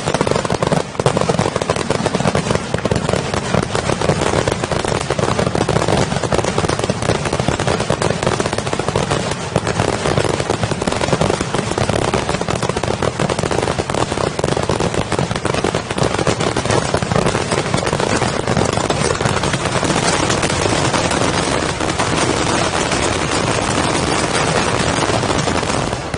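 Final barrage of a fireworks display: a dense, unbroken stream of rapid bangs and crackling, with no pause.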